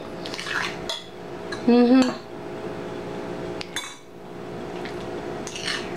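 Metal spoon clinking and scraping in a bowl as rice and beef stew are stirred together, with several sharp clinks spread through. A short vocal sound about two seconds in, over a faint steady hum.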